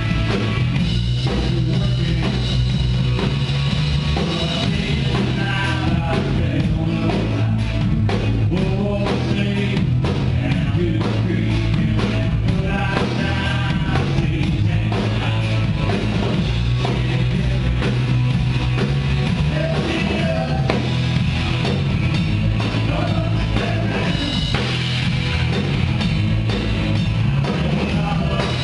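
Live rock band playing: drum kit and guitars, with a singer's voice coming in at times.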